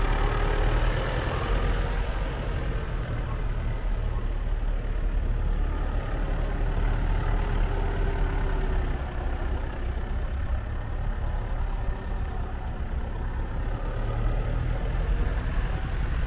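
Vehicle running: a steady low engine and road rumble with no break.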